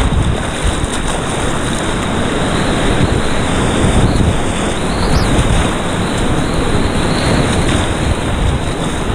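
Whitewater rapids rushing loudly around a kayak as it is paddled down through them, with water splashing over the bow.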